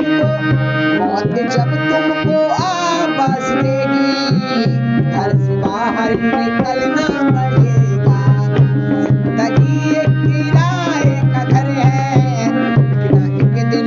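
Dholak and tabla drumming in a steady beat under a harmonium's held chords, with a voice singing a melody line over them.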